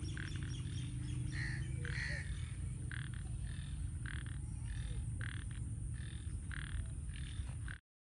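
Frogs croaking, short calls repeating irregularly over a steady low rumble, cutting off suddenly near the end.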